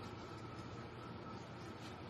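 Clear slime being squeezed and kneaded by hand, with a faint sticky click near the end, over a steady background hiss and low hum.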